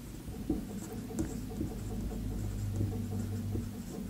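Marker pen writing on a whiteboard: faint scratchy squeaks and small taps of the pen strokes, over a low steady hum that grows louder midway.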